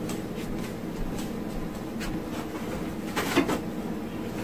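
A pan's rim being wiped clean: faint brief handling and wiping noises, with a louder brushing sound about three seconds in, over a steady low hum.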